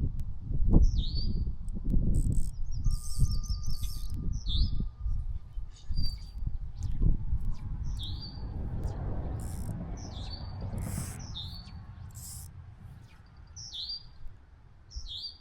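Songbirds chirping, one repeating a short call that drops in pitch every one to three seconds. Low rustling and thumps underneath are the loudest part for the first eight seconds, then fade away.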